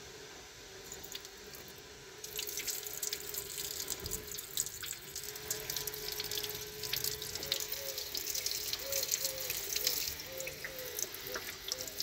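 Water gushing and splashing onto the floor from a washing machine's drain hose as it is pulled off the outlet, starting about two seconds in. It is the water left standing in a clogged top-load washer that will not drain.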